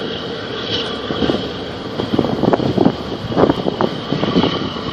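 Choppy harbour water slapping irregularly against a concrete quay wall, in short splashes that come more often after the first couple of seconds, over a steady rushing background.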